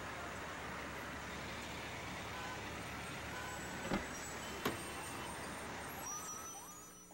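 Car running with a steady rushing noise, two sharp clicks about four seconds in, then fading out near the end.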